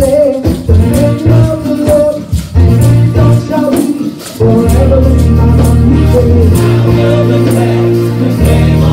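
Live gospel praise-and-worship music: voices singing over a heavy bass line, with drums and tambourine keeping the beat. The band drops back briefly about four seconds in, then the bass comes back in strongly.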